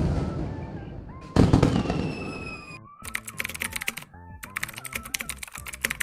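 A string of comic sound effects over faint, low-quality background music: a loud blast that dies away, a second crash about a second and a half in, then two runs of rapid clicking like typing on a keyboard.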